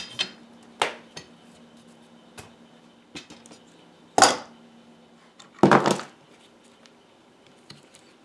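Metal bar clamps clinking and clacking as they are set and tightened on a glued chair leg: a series of separate sharp clanks, the loudest a little past four seconds and a short cluster around six seconds, over a faint steady hum.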